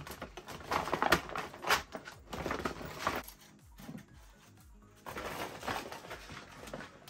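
Crinkling and rustling of a red metallic foil gift bag as items are put into it and the bag is handled, in two bouts with a short lull about three seconds in.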